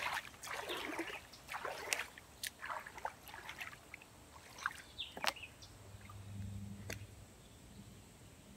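Hands paddling and splashing water beside a floating wheelbarrow tub: a run of irregular splashes and sloshes, thinning after about three seconds to scattered drips and a couple of sharp splashes. A faint low hum comes in for about a second past the middle.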